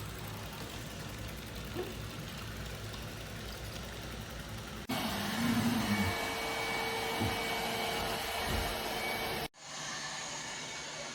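ILIFE A12 Pro robot vacuum running with a steady whir. The sound jumps abruptly about five seconds in to a louder stretch with a steady hum, then cuts out briefly and comes back quieter near the end.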